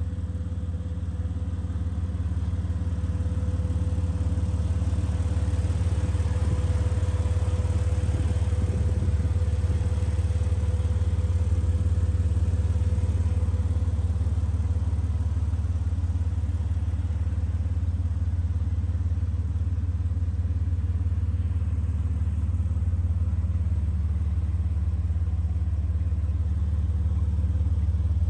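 A 2005 Jeep Wrangler TJ's 4.0-litre straight-six engine idling steadily.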